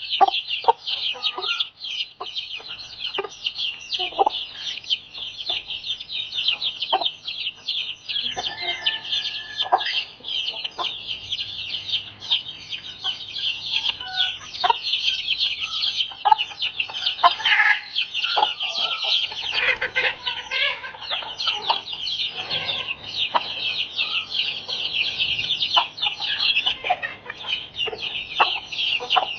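A crowd of Desi Aseel chicks peeping without a break, a dense high chorus of fast cheeps, with occasional lower clucks from grown chickens among them.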